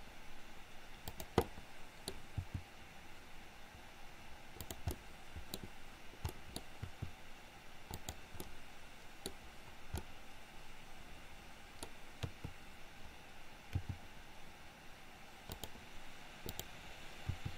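Computer mouse and keyboard clicks at irregular intervals, some in quick pairs, over a faint steady hiss.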